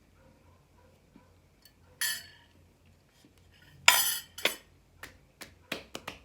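Cutlery clinking and scraping on a plate: one clink about two seconds in, a louder clatter near four seconds followed by another, then a quick run of light clinks near the end.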